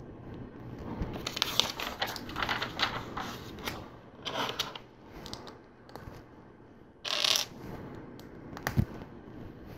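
Plastic LEGO pieces clattering and clicking as they are picked through and pressed together by hand, with a run of rattles early on, a short scrape about seven seconds in and a sharp knock near the end.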